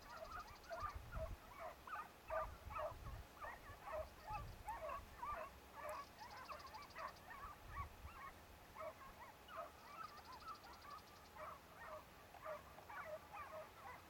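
A pack of hounds in full cry on a hare's trail: many short, overlapping yelping bays from several dogs at once, going on without a break.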